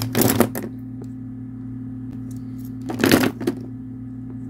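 Plastic pens and markers clattering against each other and the desk as they are handled, in two short bursts: one right at the start and one about three seconds in. A steady low hum runs underneath.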